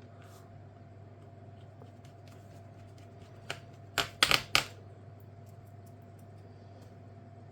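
A quick cluster of four or five sharp clicks and taps from hard parts being handled, about four seconds in and after a single faint click, over a faint steady hum.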